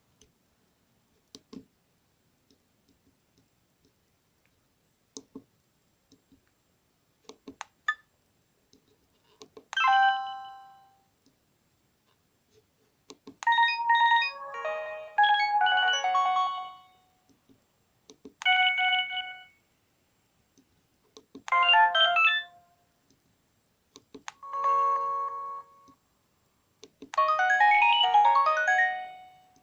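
Sony Ericsson J300 mobile phone playing about six short polyphonic ringtone or alert previews one after another, each one to three seconds long, the last a rising run of notes. Scattered sharp clicks come in the first few seconds and between the tones, typical of keypad presses while scrolling the tone list.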